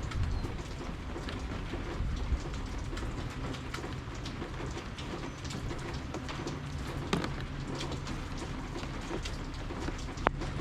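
Steady rain falling, with many separate drops tapping close by over a low rumble; one sharper, louder drip stands out near the end.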